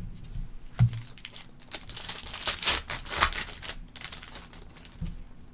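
Foil wrapper of a trading card pack crinkling as it is torn open, with a few sharp clicks from cards being handled. The crinkling is densest from about two seconds in to three and a half.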